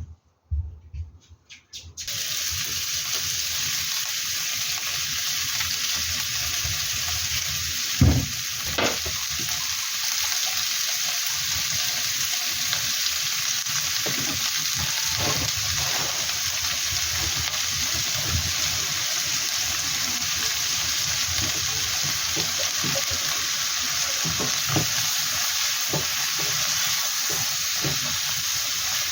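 Food frying in a hot pan: a steady sizzle that starts suddenly about two seconds in, with stirring and short knocks against the pan now and then, the loudest about eight seconds in.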